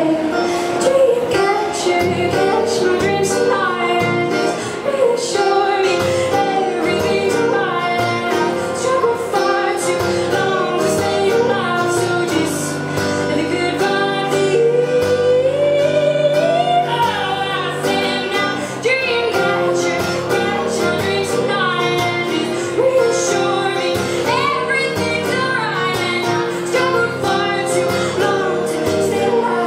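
A woman sings live while accompanying herself on acoustic guitar, with a long rising sung note about halfway through.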